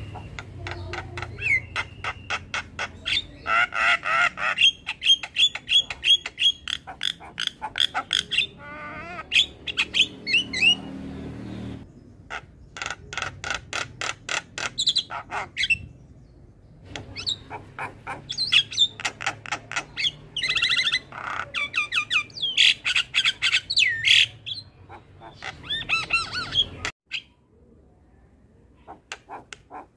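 Javan myna singing: rapid runs of repeated harsh, chattering notes and whistles in bursts with short pauses, falling quiet near the end.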